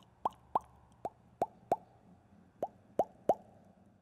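Cartoon bubble-popping sound effects on an animated logo intro: about eight quick plops, each a short bloop that glides upward in pitch. They come at uneven intervals, with a gap in the middle.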